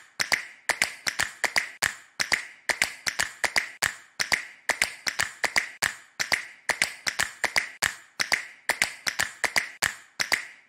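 Ticking countdown sound effect: rapid sharp clicks, about three to five a second in small uneven clusters, keeping on throughout.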